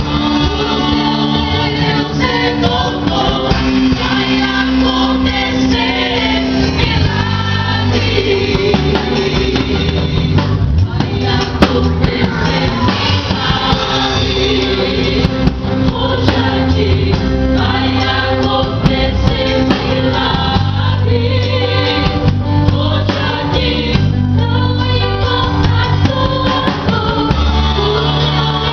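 Christian gospel worship song sung by a group of voices over a band, with a steady bass line.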